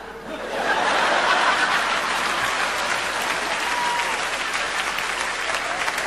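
Audience applauding and laughing in response to a punchline, the applause swelling up about half a second in and then holding steady, with a short whoop about four seconds in.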